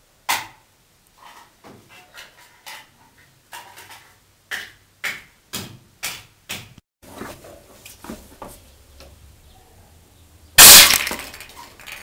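Homemade compressed-air dart rifle: a string of sharp clicks and knocks as it is handled and readied, then a loud blast of released air about ten and a half seconds in as it fires.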